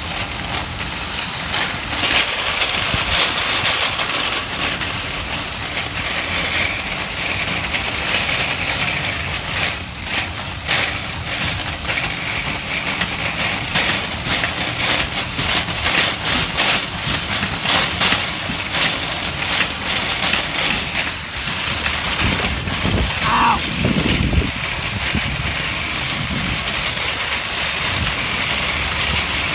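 A train of wire shopping carts rolling over asphalt: the wheels rumble steadily and the metal baskets rattle and clink all the while.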